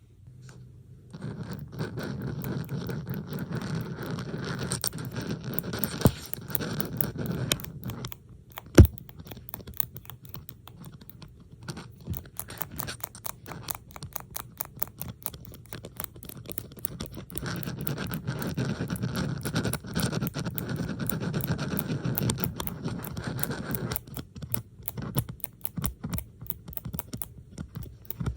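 Metal bobby pins handled close to the microphone: quick small clicks and scratches throughout, layered with a denser scratching texture that comes in for two long stretches, about a second in and again around the middle.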